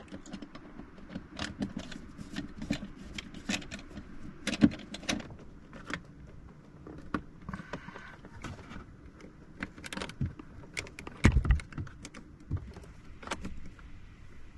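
Scattered light clicks, taps and rattles of hands handling small parts at a van's fuse box during a wiring repair, with one dull low thump about eleven seconds in.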